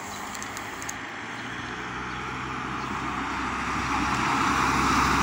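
A car approaching on the street, its engine and tyre noise growing steadily louder.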